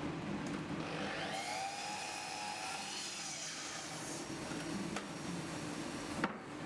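Festool sliding mitre saw crosscutting a board: the motor spins up with a rising whine about a second in, runs through the cut, then winds down. A sharp click near the end.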